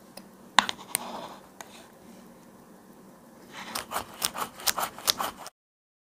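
Small metal watchmaker's tools clicking and scraping against a watch case and movement. There is a sharp click and scrape about half a second in, then a quick run of light clicks near the end that cuts off suddenly.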